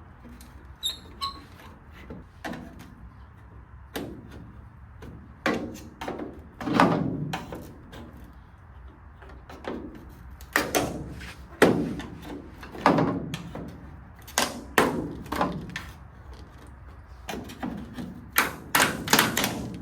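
Hands and tools knocking and clicking on the truck's light fittings as a part is changed: a string of irregular sharp knocks and clunks, several of them loud.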